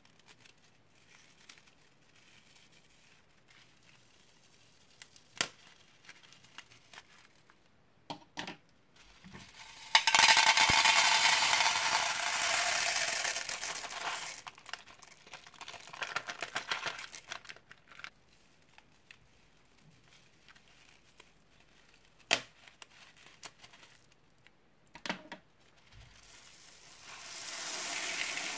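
Small foam beads pouring out of plastic piping bags into a bowl: a dense rattling rush of many tiny beads about ten seconds in and again near the end, with a shorter pour in between. The plastic bags crinkle as they are handled, and a few sharp clicks stand out in the quieter stretches.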